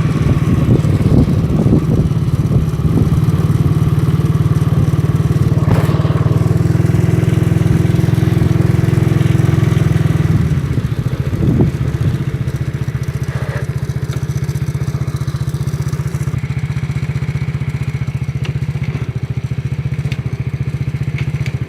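Motorcycle engine running steadily under way, its even firing beat carrying throughout; it eases slightly about ten seconds in.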